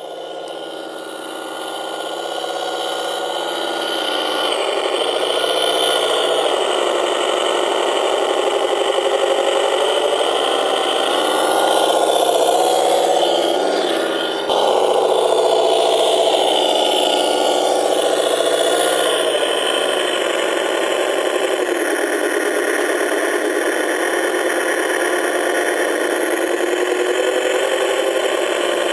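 Simulated truck engine from an RC sound system in a Tamiya KongHead 6x6 model truck. It fades in, rises and falls in pitch around the middle with a sudden jump in level about halfway, then runs steadily.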